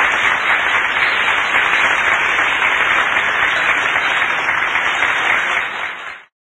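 Audience applauding steadily at the close of a speech, with the applause dropping away and cutting off abruptly near the end.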